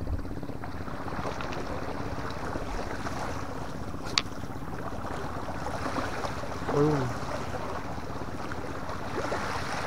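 Steady wash of small sea waves against shore rocks, with wind on the microphone. There is a single sharp click about four seconds in and a brief voice sound near seven seconds.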